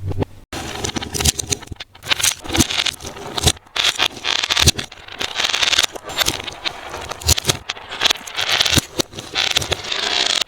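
Close crackling and scraping of a sensory play material being handled, a dense irregular stream of small clicks and scratches.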